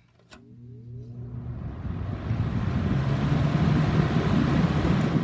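Vintage Lakewood box fan starting up: a click of the switch, then the McMillan motor hums with a rising pitch as the blade spins up, and the rush of air builds steadily louder.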